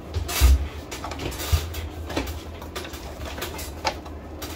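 Handling knocks from a duo roller blind being fitted into its headrail brackets by hand: a loud low thump about half a second in, a second knock about a second later, and a few short squeaks and clicks.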